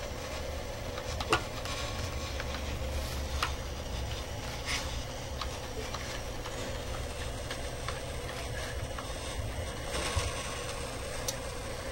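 The robot's motors and mechanisms running as it moves its face and body, with a steady low hum and a handful of sharp mechanical clicks at irregular intervals.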